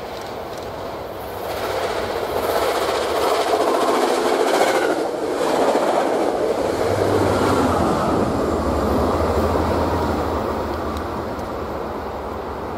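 New Jersey Transit push-pull commuter train passing at speed, led by a Comet V cab car, its wheels clattering over the rails. The noise builds over the first couple of seconds, stays loud for several seconds, then fades. In the second half a low steady hum comes in as the diesel locomotive at the rear goes by.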